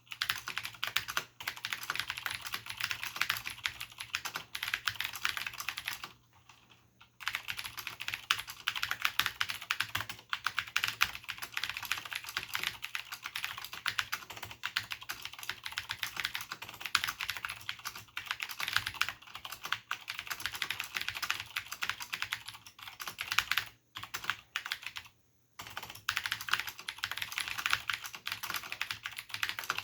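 Continuous fast typing on a Cherry G80-1813HFU keyboard with Cherry MX Blue switches: dense, crisp clicking of the switches and doubleshot keycaps, broken by brief pauses about six seconds in and twice near the three-quarter mark.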